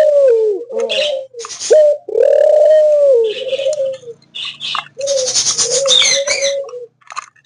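Doves cooing: a run of low, arching coos one after another, with some higher chirping mixed in about five seconds in.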